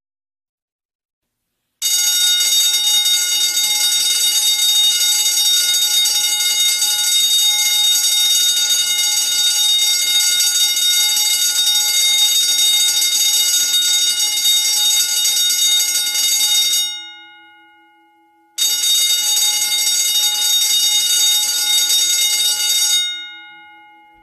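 Fire alarm bell ringing continuously, starting about two seconds in and running for about fifteen seconds before it stops and its ring fades. After a short break it rings again for about four seconds, then fades out.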